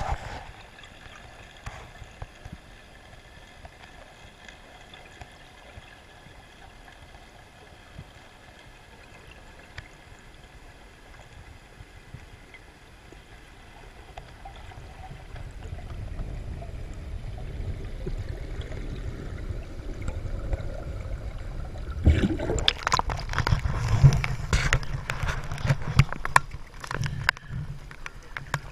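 Sea water heard on an underwater camera: a faint steady hum while submerged, then from about 22 seconds in, loud irregular splashing and sloshing as the camera comes up into surface chop.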